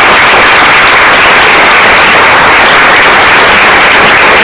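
Audience applauding, a loud, steady wash of clapping at the end of a talk.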